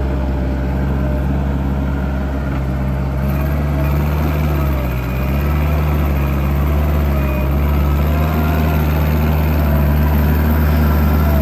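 JCB Midi CX compact backhoe's diesel engine running steadily at idle, with a slight dip in its note about five seconds in.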